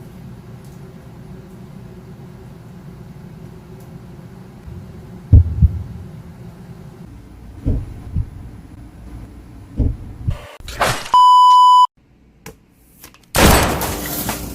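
A few dull thumps, then a short, steady, high-pitched censor bleep lasting under a second. Near the end a loud, noisy sound begins.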